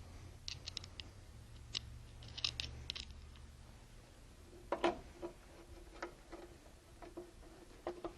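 Faint, irregular clicks and ticks of a Phillips screwdriver driving screws and washers into the back of an embroidery machine's control panel, the sharpest click about five seconds in.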